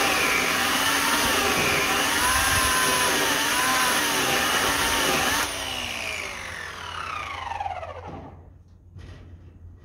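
Oregon CS1400 15-amp corded electric chainsaw cutting into a log, its motor pitch wavering under the load. About five seconds in it is released and the motor winds down with a falling whine, stopping a few seconds later.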